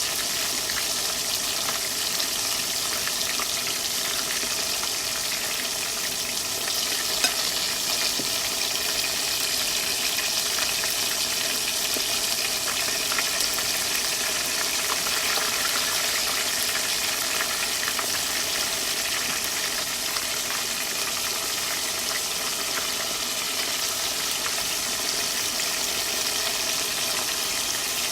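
Food sizzling steadily in a frying pan, a dense even hiss with a few faint clicks and one sharper tap about seven seconds in.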